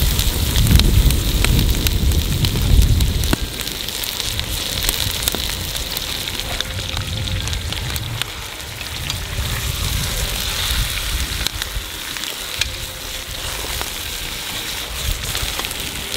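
Chicken pieces sizzling in hot butter in an aluminium kazan over a wood fire, with scattered crackles. A low rumble lasts through the first three seconds or so.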